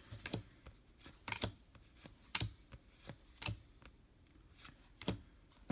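Trading cards being handled and flipped through by hand, with sharp irregular clicks and snaps of card stock about once or twice a second.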